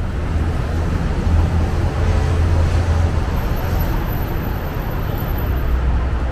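Steady low rumble of road traffic, the even outdoor street ambience of a busy roadside.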